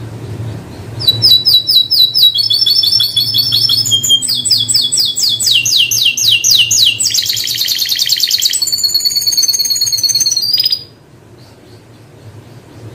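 Canary singing a long song of rapid trills. Each phrase is a fast run of one repeated note, and the bird switches to a new phrase every second or two before stopping abruptly near the end. A faint low hum runs underneath.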